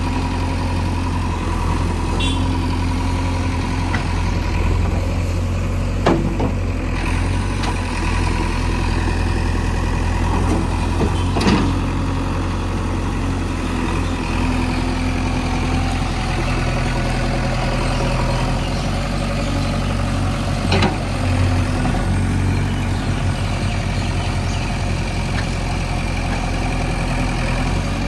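JCB 3DX backhoe loader's diesel engine running steadily at low revs while it levels loose soil, with three sharp knocks spread through.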